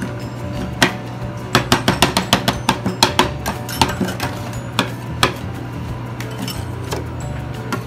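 Metal spatulas chopping and tapping on a chilled steel pan while stir-frying yogurt, a quick run of sharp clinks about four or five a second, thinning out after the middle, over a steady low hum.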